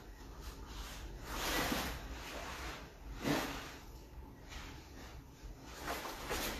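Two grapplers in gis moving against each other on foam floor mats while drilling an armbar: soft rustling and shuffling, with three swells of noise about a second, three seconds and six seconds in.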